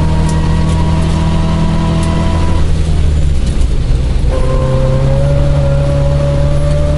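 1977 Isuzu Gemini coupe's 1600cc four-cylinder engine running hard, heard from inside the cabin, over a steady hiss of gravel and tyre noise. About three seconds in the engine note breaks off for a second or so, then the engine pulls again in a steady note that climbs slowly.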